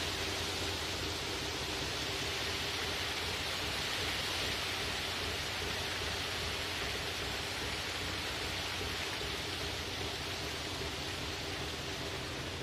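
A dense mass of small fish thrashing and splashing at the surface inside a seine net, a steady hissing patter like heavy rain, with a faint steady hum beneath.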